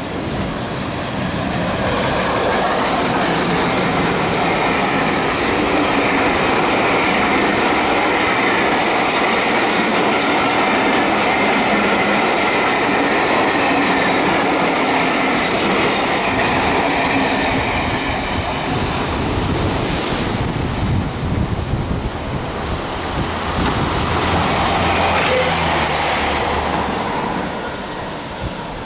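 LNER A4 Pacific steam locomotive 60019 'Bittern' passing at the head of its train of coaches, the wheels clattering over the rail joints with a steady high squeal on the curving track.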